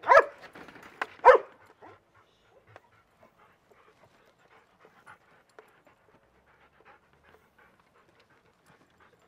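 A dog barks twice, two sharp barks in the first second and a half, followed by faint scattered taps of footsteps on a wooden boardwalk.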